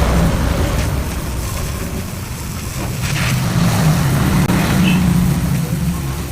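Motor vehicle engine running, a low drone that swells in the middle of the stretch.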